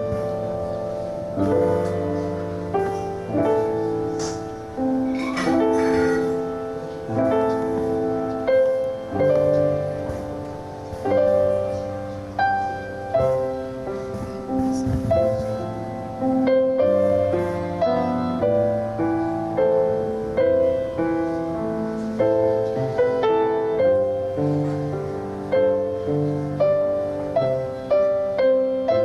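Solo piano playing a slow, gentle piece, with notes and chords struck about once a second and left to ring and fade.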